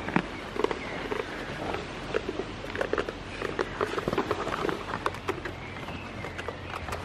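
Irregular close taps, knocks and rustling in light rain, from raindrops and handling right at the microphone, with goats close by.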